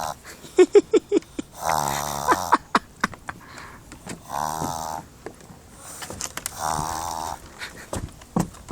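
Pug making snore-like noises through its nose, one every two seconds or so, each lasting under a second, with a few short squeaky sounds about a second in.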